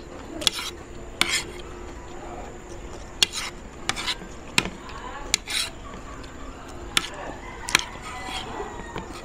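Metal spoon and fork clinking and scraping against a ceramic plate while eating, in about ten irregular, sharp clinks.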